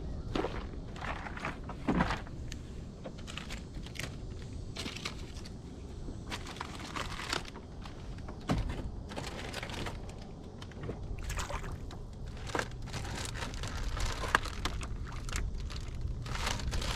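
Irregular small clicks, rattles and rustling from hands handling fishing gear while working a swallowed hook out of a fish.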